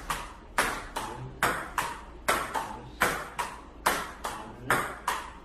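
A steady run of sharp, ringing taps, about two and a half a second, each one decaying quickly.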